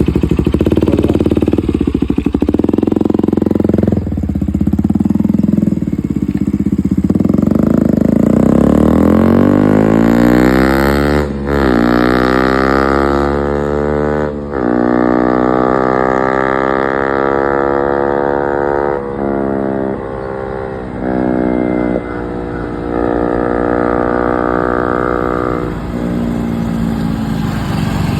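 KTM Duke 200 single-cylinder engine through an SC Project aftermarket exhaust: a lumpy, pulsing idle at first, then the engine climbs in pitch and drops back suddenly several times.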